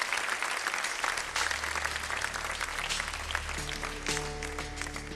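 Studio audience applauding, the clapping slowly thinning out, while the intro of the song comes in under it: a low held note from about a second in, joined by steady held higher notes a little past halfway.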